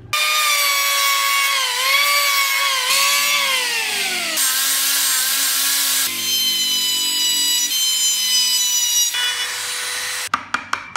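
Handheld electric power tools working wood in quick succession: a motor whine that wavers and then falls in pitch, a random-orbit sander pad running on the wood with a steady high whine, and a rotary carving tool. A run of sharp taps near the end.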